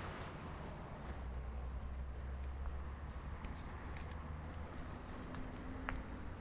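Street ambience: a steady low rumble of distant city traffic with scattered light taps and clicks, a few sharper ones near the end.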